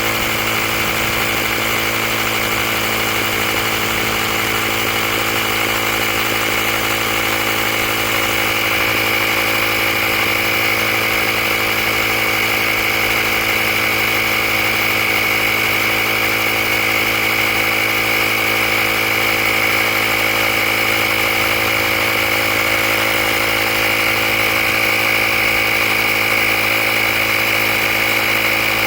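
Handheld air compressor running steadily as it inflates a tire toward a preset 35 PSI, getting slightly louder about eight seconds in.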